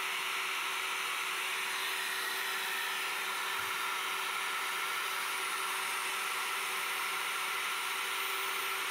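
Electric diamond core drill on a stand running steadily under load as its bit cuts through a reinforced concrete tank wall: an even motor hum with a grinding hiss that holds level throughout.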